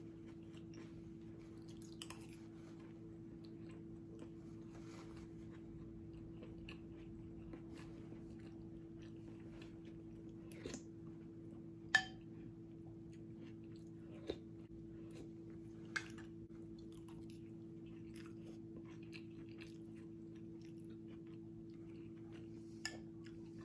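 Quiet chewing of soft cooked quinoa, with a few sharp clinks of a metal spoon against the bowl, the loudest about halfway through. A steady low hum runs underneath.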